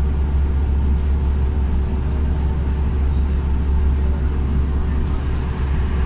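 Inside a Scania OmniCity single-deck bus cruising at speed: a steady deep drone of engine and road noise with a faint constant hum above it.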